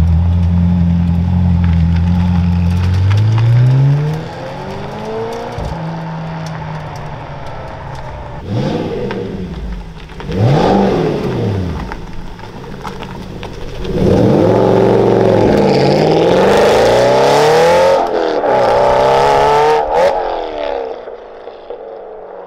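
Supercar V8 engines pulling away one after another: a McLaren Senna's engine running steadily, then rising as it pulls off, then revs blipped a few times. About halfway through, an Aston Martin Vantage GT8's V8 accelerates hard with rising and falling revs for several seconds, fading as it drives off near the end.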